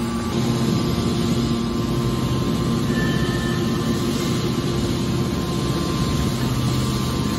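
Hydraulic scrap-metal baler running with a steady hum from its hydraulic power unit as its hinged lid closes over a charge of steel turnings.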